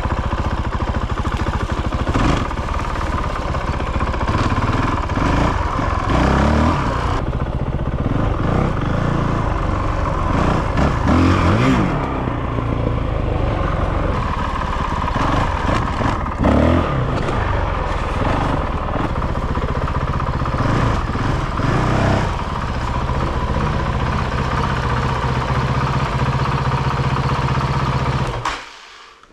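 Honda CRF450RL's single-cylinder four-stroke dirt-bike engine running on a freshly installed GET SX1 Pro aftermarket ECU, revved up and back down several times. The engine sound falls away and cuts off just before the end.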